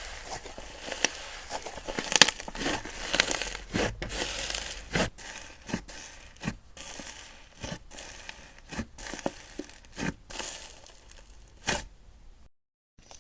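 Slime being worked by hand, crackling and popping irregularly with sharp snaps a few times a second. The sound stops dead for a moment near the end.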